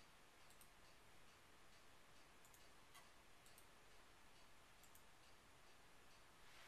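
Near silence with a few faint computer mouse button clicks, mostly in quick pairs.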